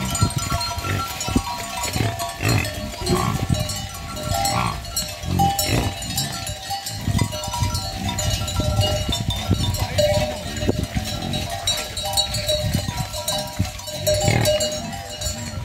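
Bells on a herd of yaks ringing and clanking continually as the animals move, with irregular low thumping underneath.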